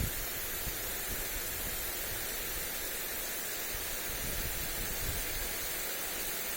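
Lawn sprinkler spraying water onto grass: a steady, even hiss of falling spray. Low wind rumble on the microphone comes and goes underneath.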